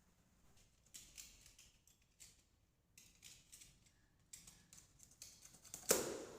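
Packaging being handled and opened: scattered faint rustles, scrapes and clicks, with one louder knock near the end.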